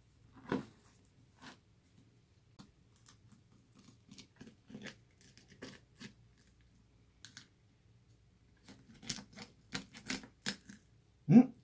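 Kitchen knife filleting a red sea bream on a plastic cutting board: scattered short scrapes and clicks of the blade against the bones and the board, coming quicker near the end. A louder knock just before the end.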